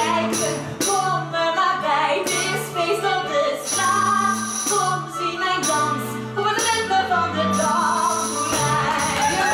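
Live small-band music for a dance number: bass guitar and piano with a melody line, and a tambourine jingling in a quick, steady rhythm.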